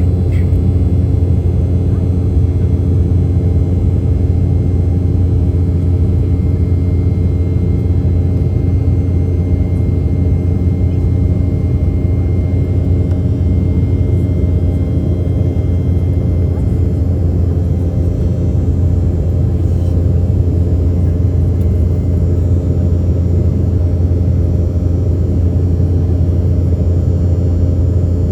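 Steady, loud cabin drone of an Embraer 195 in flight: the low hum of its twin GE CF34-10E turbofans mixed with airflow noise, heard from a window seat.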